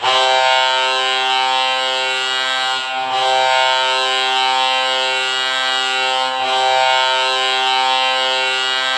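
Colorado Avalanche hockey goal horn sounding one long, steady blast that starts suddenly.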